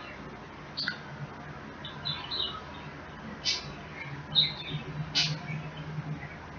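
Close-up mouth sounds of eating: wet lip smacks and chewing clicks, short and squeaky, coming every second or so.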